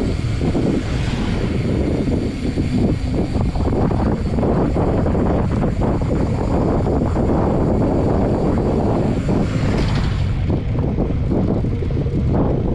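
Wind buffeting the microphone during a ride: a loud, steady rumble.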